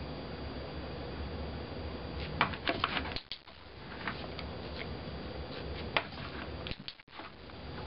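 Dog-training clicker clicking: a quick cluster of sharp clicks about two and a half seconds in, and one more sharp click about six seconds in, over a steady low hum. The clicks mark the dog's behaviour and are followed by a treat.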